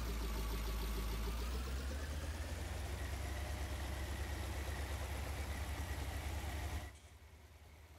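Combine harvester's engine idling steadily, with a high whine that dips in pitch, then rises and holds. The sound cuts off suddenly near the end.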